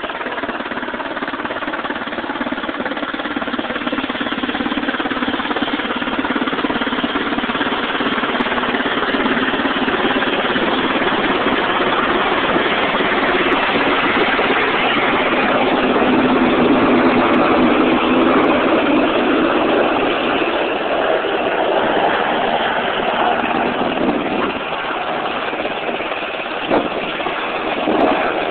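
UH-60 Black Hawk helicopter's rotors and turbine engines running loud and continuous as it passes low overhead and comes down to a hover to land, growing louder to a peak about two-thirds of the way through, then easing slightly. Two short knocks near the end.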